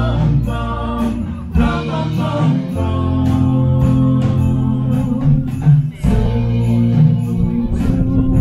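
Music with singing over a steady beat of sharp, high percussion hits and a strong bass line.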